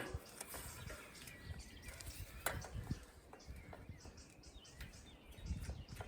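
Faint outdoor background: a low rumble with a few scattered small clicks and knocks, the sharpest about two and a half seconds in, and birds chirping faintly.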